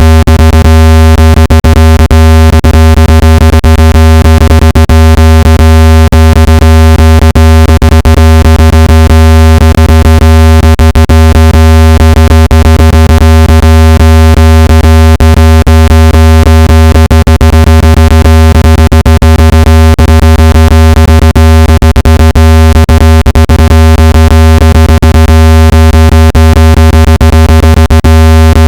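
Speaker-cleaning tone: a steady, very loud low buzzing tone with many overtones, played at full level to vibrate a phone speaker and shake dust and moisture out of it. Frequent clicks crackle through it.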